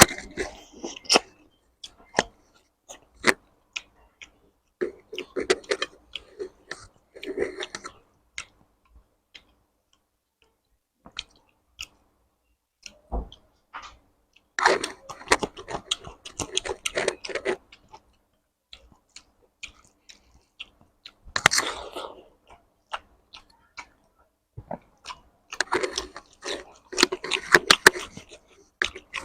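Close-miked mouth sounds of eating rice and curry: wet chewing and smacking with sharp clicks. They come in bursts of a few seconds, with quiet pauses between.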